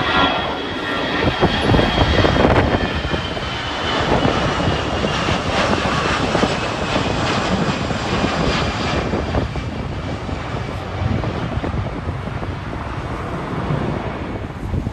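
Jet airliner passing with a broad engine roar and a high whine that slowly falls in pitch, with wind buffeting the microphone.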